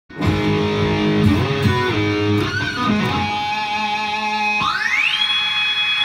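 Intro music led by an electric guitar playing sustained notes. About four and a half seconds in, one note slides up in pitch and is held high.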